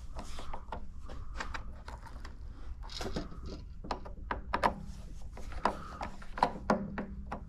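Irregular clicks, taps and rubbing of hands working at an electric water heater's thermostat and wiring, with a few sharper knocks in the second half.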